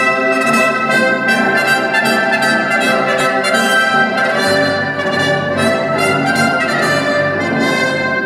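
Orchestral music with brass playing loud held chords that change every second or so.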